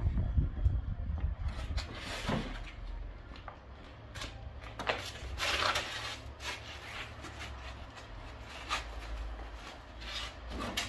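Large expanded-polystyrene (styrofoam) insulation boards being handled and stacked: a few irregular scraping, rubbing sounds, the longest about five seconds in, over a low steady rumble.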